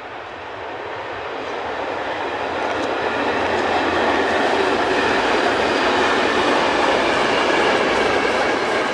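Locomotive-hauled passenger train running across a concrete railway viaduct: steady wheel-on-rail noise that grows louder over the first four seconds as the train approaches, then holds loud and even as the locomotive and coaches pass.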